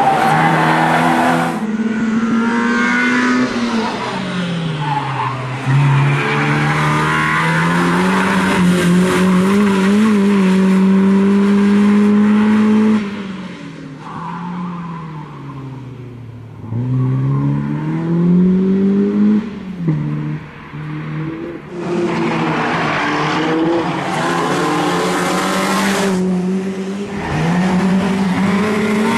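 BMW E30 318is's 1.8-litre four-cylinder engine revving hard and dropping through repeated gear changes, with tyres squealing through the corners. It grows quieter for a few seconds about halfway through, then comes back up to full revs.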